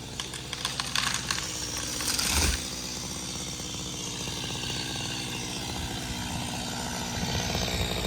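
Stihl MS250 two-stroke chainsaw running. A series of sharp cracks ends in a heavy thud about two and a half seconds in, the sound of the cut cedar's hinge wood breaking and the tree coming down. After that the saw idles steadily.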